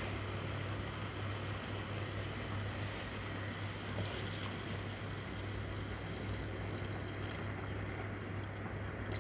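Prawn and vegetable curry simmering in a pot, bubbling softly, with scattered light pops from about four seconds in, over a steady low hum.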